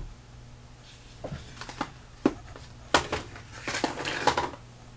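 Makeup items being handled and moved about: a scatter of light clicks and knocks, with a busier clatter near the end.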